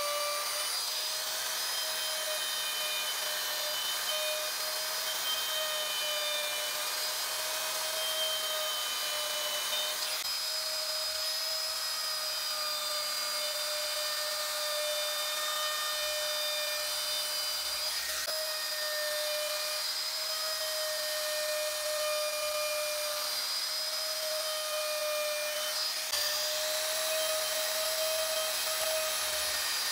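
Electric router running at high speed with its bit cutting into a wooden panel: a steady high motor whine over the hiss of wood being routed away. The pitch steps slightly a few times.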